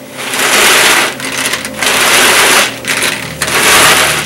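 Tupperware Power Chef pull-cord chopper pulled three times, each pull a loud burst of about a second as its three sharp blades spin through the peanuts, chopping them down toward peanut butter.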